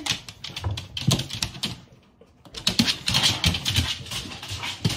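A boxer and an English bulldog at feeding time, making a rapid patter of small clicks and taps with a short lull about two seconds in.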